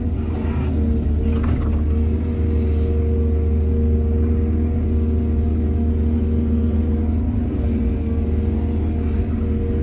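Heavy diesel engine of an excavator running steadily, with a deep, even rumble.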